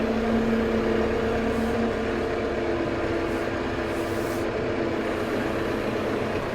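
Tractor engine running steadily with a steady whine that shifts to a different pitch about two seconds in.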